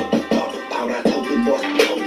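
Hip-hop music playing, with a man rapping over the beat.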